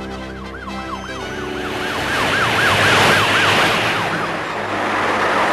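Cartoon police sirens in a fast yelp, several sweeps a second, over a rush of passing vehicles. They swell to their loudest about three seconds in and then fade away.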